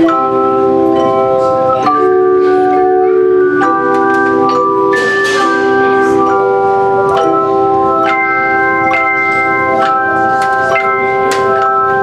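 Bell choir playing a piece on handbells and handchimes: sustained ringing chords that overlap and change every second or two.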